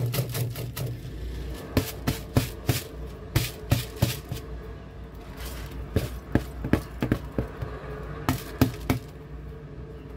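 Washed rice sliding out of a woven bamboo basket into the liquid in a rice cooker pot, then a series of sharp, irregular taps and knocks as the basket is knocked against the pot's rim to shake out the last grains.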